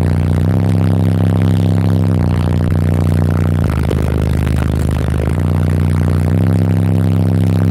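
Loud bass demo from a car audio system with four Sundown Audio 18-inch subwoofers: deep low notes that step between a few pitches every second or two, with a short break near the middle. A rough buzzing rattle runs with the bass.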